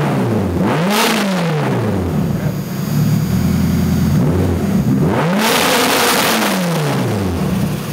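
Turbocharged car engine free-revved twice from idle: each time the pitch climbs quickly, peaks and falls back to a steady idle, with a rushing hiss near the top of each rev.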